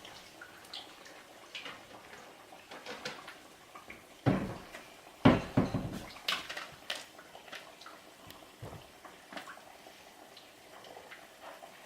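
Kitchen handling noises: scattered light clinks of utensils and dishes, with a couple of heavier knocks about four and five seconds in, over a faint background.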